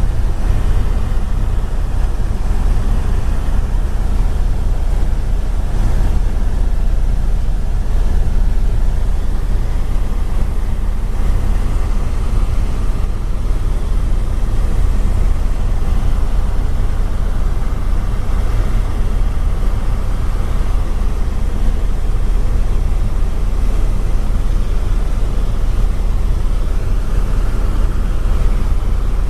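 Loud, steady low engine drone with no let-up, heard from on board the running craft.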